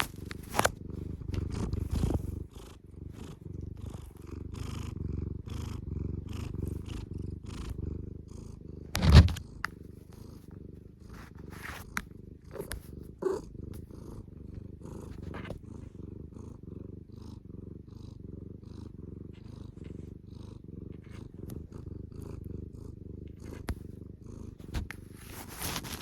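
A domestic cat purring steadily right at the microphone, with scattered clicks and knocks and one loud bump about nine seconds in.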